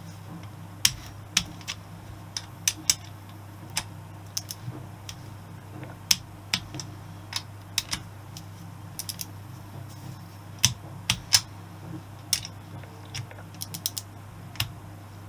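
Small ratcheting torque wrench clicking irregularly as cylinder head bolts are tightened to 9 newton metres, over a steady low hum.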